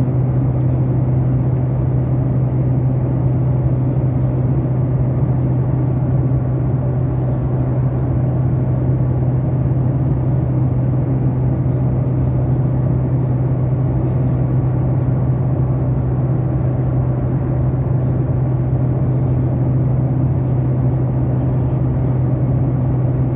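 Steady drone inside an airliner's passenger cabin: engine and air noise with a strong low hum, unchanging in level.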